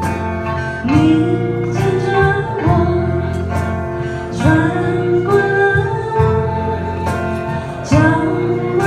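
A small live band playing a slow song: a transverse flute and a female voice carry the melody, with notes sliding up into long held tones, over sanshin, acoustic guitar, electric bass and cajón.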